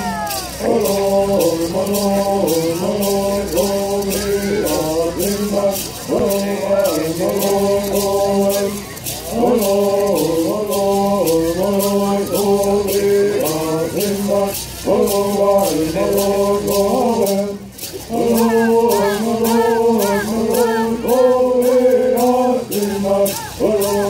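Men singing a Bird song together in unison, with gourd rattles shaken in a quick, steady beat. The song breaks off briefly a little past the middle, then picks up again.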